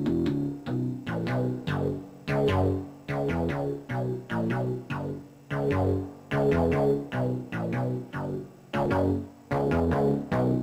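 MacBeth M5/M5N analogue synthesizer playing a run of short, sharp-attacked notes that change in pitch and die away quickly, about two to three a second, picked up by a video camera's microphone.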